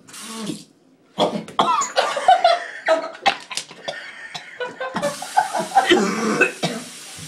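A person coughing hard in repeated, irregular fits, choking on a mouthful of dry ground cinnamon.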